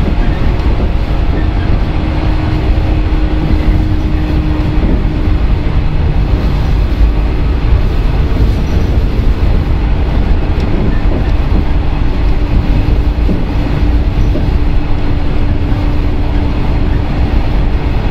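Running noise heard inside the motor car of a JR 115-series electric train at steady speed. Wheels and track make a loud, even rumble, with a steady tone held above it.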